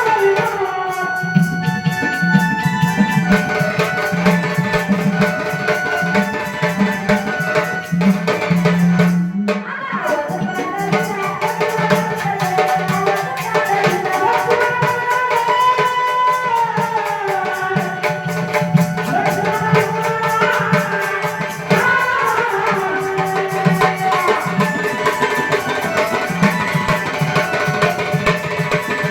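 Devotional Ramayana katha song: a woman singing a melody over tabla and jingling percussion, the music pausing briefly about a third of the way in.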